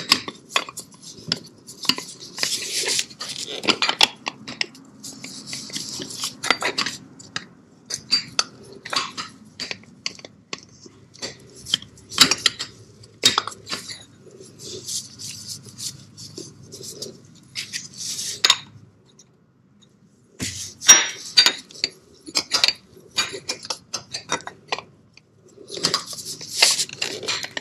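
Irregular metal clinks, taps and scrapes, with rustling, from gloved hands working an oil filter against the filter mount under a Honda VT1300 motorcycle engine. The new filter will not fit. The handling pauses briefly about two-thirds in, then a cluster of louder knocks follows.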